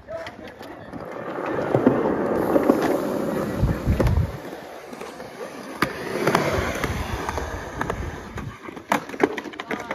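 Skateboard wheels rolling over concrete in two long stretches, with a few sharp clacks of the board near the middle and end.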